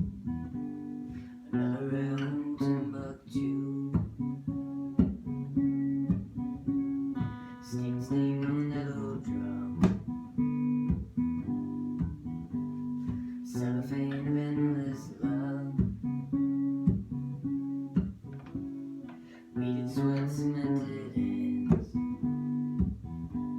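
Acoustic guitar strumming a steady chord accompaniment, with a sung vocal phrase coming in about every six seconds.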